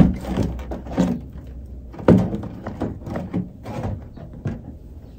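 Rigid clear plastic window panel of a doll's display box being pulled off and handled: crackling and clicking plastic, with two sharper knocks about two seconds apart.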